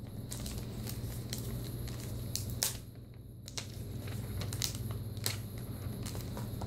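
Hands gripping and working a laptop in thin protective plastic film loose from its packaging tray: soft crinkling and rustling of the film with scattered light clicks, a few sharper ones about two and a half and five seconds in.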